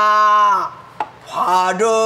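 Pansori singing: a voice holds one long note that breaks off just past the first half-second. About a second in comes a single sharp knock, a stroke on the buk barrel drum, and the singing starts again soon after.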